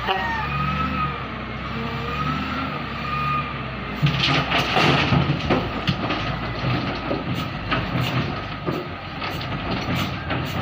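TCM wheel loader's diesel engine running while its bucket tips a load of dirt and rubble into a steel dump-truck bed: a loud rush of falling material about four seconds in, then scattered knocks of stones landing in the bed.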